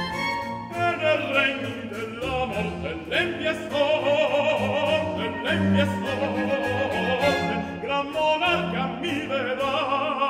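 Background music: an Italian opera aria, a singer holding long notes with a wide vibrato over an orchestra with strings.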